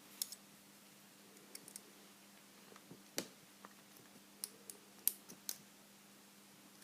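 Faint, scattered metal clicks and ticks of a lock pick and tension wrench working in the keyway of a vintage Corbin pin tumbler padlock, about eight small clicks spread irregularly over several seconds.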